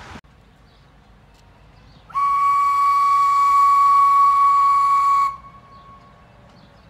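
Steam locomotive whistle blowing one long, high note for about three seconds, starting about two seconds in and cutting off sharply.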